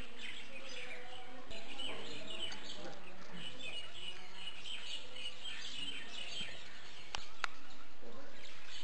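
Small birds chirping continuously in the open air, with two sharp clicks about seven seconds in.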